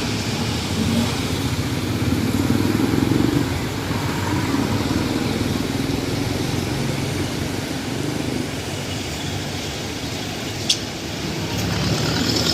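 Road traffic on a rainy street: car and motorcycle engines running and passing, swelling and fading. A brief sharp high chirp sounds near the end.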